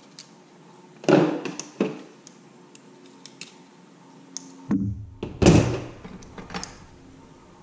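Light clicks and knocks of small plastic toothbrush parts and hand tools being handled on a desk, then a louder double thunk about five seconds in as a pair of tongue-and-groove pliers is set back down.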